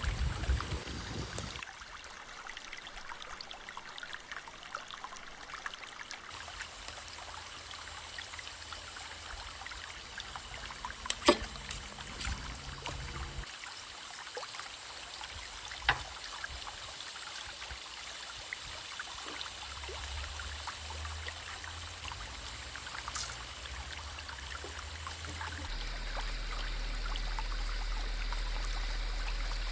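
Steady hiss of food cooking in a pot, with one loud sharp click near the middle and a smaller click a few seconds later.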